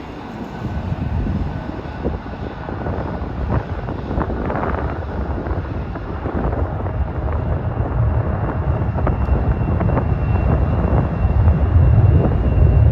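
Jet airliner's engines on landing approach, a broad steady rumble with a thin high whine, growing steadily louder as the plane comes closer.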